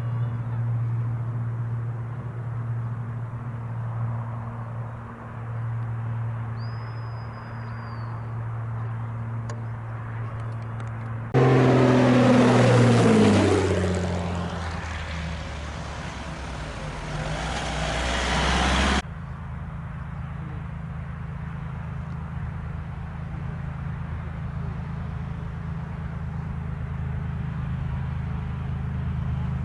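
Light aircraft's piston engine and propeller droning steadily. About eleven seconds in, a much louder pass starts suddenly, its engine note falling in pitch as the aircraft goes by. It stops abruptly some eight seconds later, and a steady low engine drone carries on.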